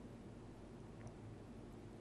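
Near silence: faint room tone with a low hum, and one tiny click about a second in.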